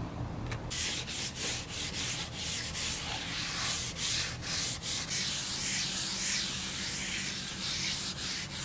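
Paper towel rubbing vegetable oil over a bare cast iron skillet, a hissing scrub in quick strokes with short breaks, then steadier from about five seconds in. The oil is being wiped on as a thin coat for seasoning.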